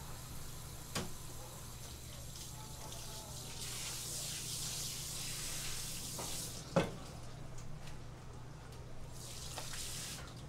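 Water running from a gooseneck faucet onto a plastic cutting board in a stainless steel sink, in two spells, as a knife is rinsed. A sharp knock comes between the two spells, and a low steady hum runs underneath.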